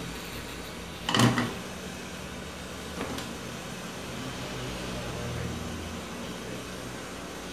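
Steady low machine hum, with a short clatter of something handled about a second in and a faint click near three seconds.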